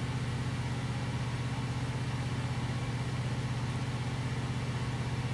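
Steady low hum of a running machine.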